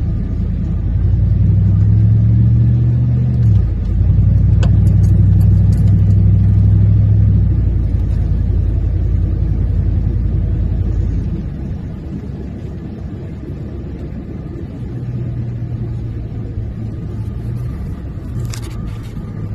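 Car engine running steadily while driving, a low hum whose note shifts about three and a half seconds in and turns quieter about eleven seconds in.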